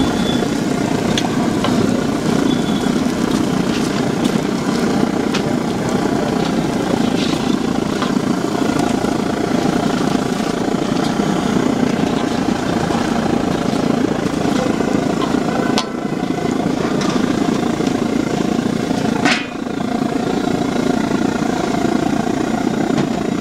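Medu vadas deep-frying in a kadai of hot oil, with small crackles over a loud, steady low roar that never lets up.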